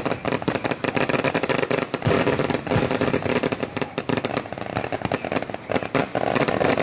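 A long string of firecrackers hanging beneath a rising hot-air balloon goes off in a dense, irregular crackle of sharp bangs, many a second, without a break.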